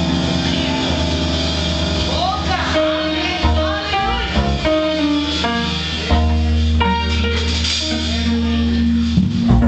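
Praise and worship band music: guitar playing melodic lines over sustained bass notes, with gliding bent notes in the middle.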